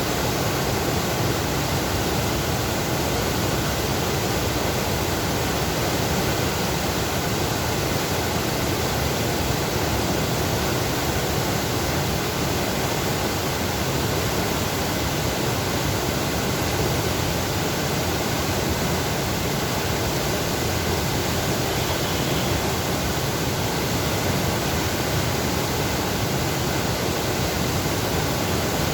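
Water rushing steadily through a sluice gate: an even, unbroken rush of falling water.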